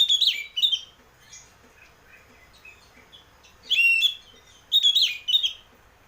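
Oriental magpie-robin (kacer) singing in short, loud whistled phrases with sharp pitch glides. There are two quick phrases at the start, a pause of about three seconds, then two more phrases near the end.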